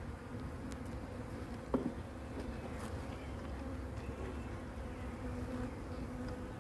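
Honeybees buzzing in a steady hum around an open hive. There is one brief knock a little under two seconds in.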